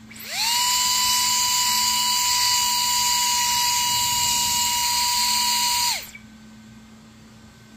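3D-printed 20 mm electric ducted fan spooling up quickly to a high-pitched whine, running steady for about five seconds, then cutting off sharply.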